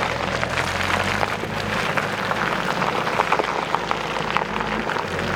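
Mitsubishi Montero diesel engine running low and steady while the 4x4 moves over rough ground, under a dense crackle of tyres on loose stones and mud.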